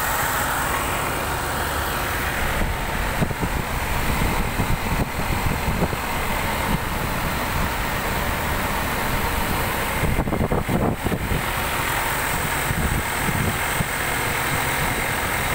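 Land Rover Range Rover (L405) engine idling steadily under the open bonnet.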